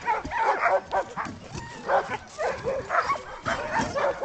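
Several chained sled dogs barking and yipping, with short calls overlapping one another throughout.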